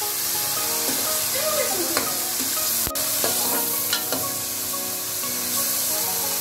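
Chopped onions sizzling in hot oil in a steel pot, stirred with a steel spoon that scrapes and clicks against the pot a few times in the middle.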